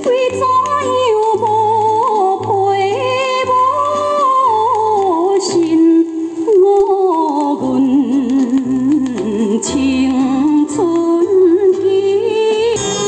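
A vinyl record of a song with a singing voice over a steady bass line, played through a repaired AIWA TPR-950 stereo radio cassette recorder and heard from its speakers.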